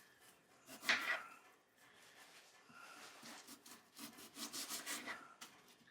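Knife cutting potatoes on a wooden cutting board, with one sharp knock about a second in and a run of quick scraping strokes about four to five seconds in.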